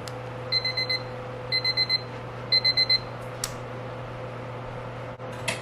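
Electronic alarm beeping: three bursts of four quick high beeps, about one burst a second, over a steady low hum. A couple of sharp clicks follow near the end.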